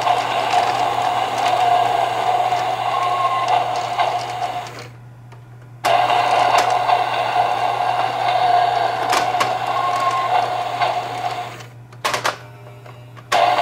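Battery-powered toy N700A Shinkansen train running around its plastic track, its small motor and gears going steadily, with a few sharp clicks from the controller lever and buttons. Twice the running sound dies away as the train slows to a stop, then starts again abruptly.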